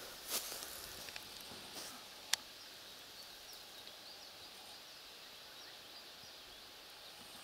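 A few soft rustles of leaves and grass, and a single sharp click about two seconds in. After that there is a faint, steady meadow background with many short, high chirps of small birds.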